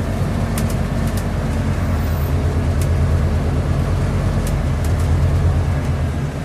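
Scania N230UD double-decker bus under way, heard from the upper deck: the five-cylinder diesel engine's steady low drone over road noise, swelling a little in the middle and easing near the end, with a few light clicks.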